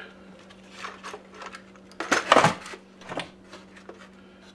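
Metal parts and tools clinking and clattering as they are handled, in a few short scattered knocks, the loudest cluster about two seconds in, over a steady low hum.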